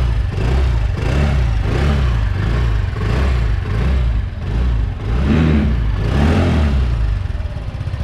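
Benelli Panarea 125's fuel-injected single-cylinder four-stroke engine running, revved in short throttle blips about once a second for a sound check.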